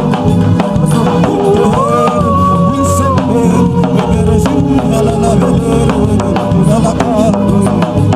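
Live church band music: a drum kit keeps a steady beat under a lead melody of held, gliding notes.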